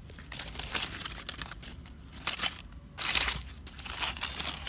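Dry leaf litter rustling and crunching in a run of uneven crackly bursts, loudest about three seconds in, as it is handled and shifted close by.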